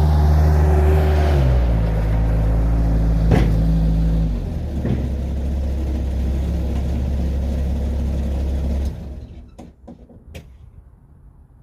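Diesel skid steer engine running under way, its engine speed stepping down twice, with a sharp knock about three seconds in; the engine sound stops about nine seconds in, leaving a few faint clicks.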